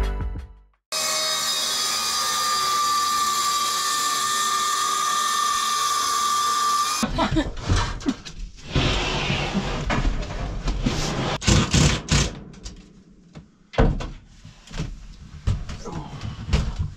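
A power drill runs steadily for about six seconds and then stops abruptly. A plywood ceiling sheet is then handled and knocked against the wooden framing, giving a series of knocks and thumps.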